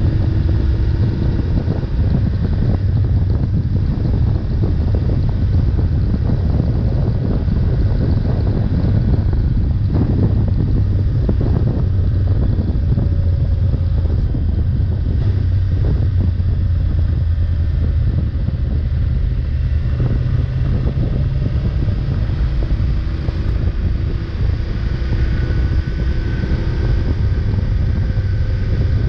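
BMW F850 GS Adventure's parallel-twin engine running at a steady cruise, under heavy wind noise on the microphone from riding at road speed.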